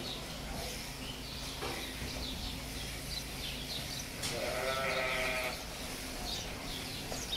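A sheep bleating once, a wavering call of about a second, roughly four and a half seconds in.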